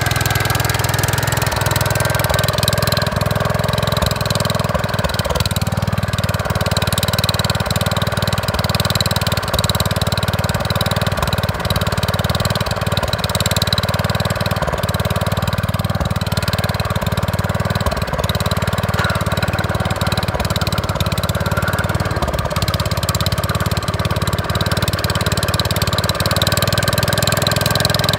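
Gravely 5665 walk-behind tractor's 12 hp Kohler single-cylinder engine running steadily, its pitch wavering slightly.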